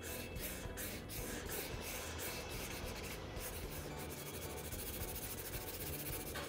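Felt-tip marker scratching across paper in quick back-and-forth colouring strokes.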